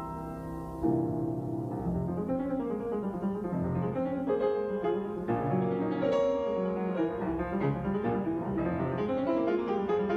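Background piano music, a flowing run of notes that grows louder about a second in.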